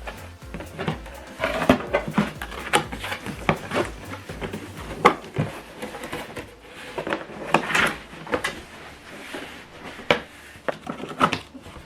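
Speaker packaging being opened and handled: a string of irregular knocks, taps and clicks, with a longer rustle of packing material about eight seconds in.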